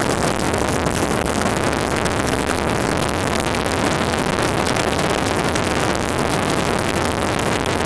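Steady, loud rushing noise with a low rumble underneath and no clear tone: the engine and wind noise of a helicopter in flight.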